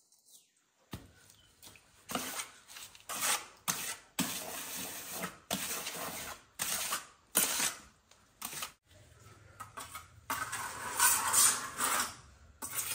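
Irregular clattering: sharp knocks and short scrapes of hard objects being handled, a dozen or so spread unevenly, with a longer run of scraping about ten seconds in.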